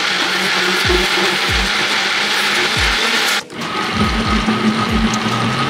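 Countertop blender running, puréeing boiled green plantain with water and oil in its glass jar. It stops briefly about three and a half seconds in, then starts again.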